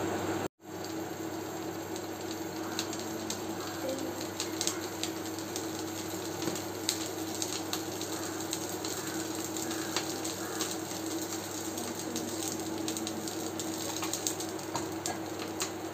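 Cooking oil sizzling and crackling in a hot kadai on an induction cooktop, with many scattered pops; mustard seeds go into the hot oil near the end.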